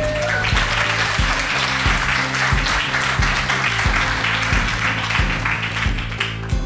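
Audience applauding, over background music with a steady beat; the applause dies away near the end.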